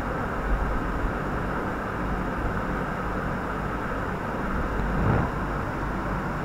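Steady low rumbling background noise in a kitchen while a cooking pan is on a low flame, with a brief louder rustle about five seconds in as loose boiled chana daal stuffing slides from a plate into the pan.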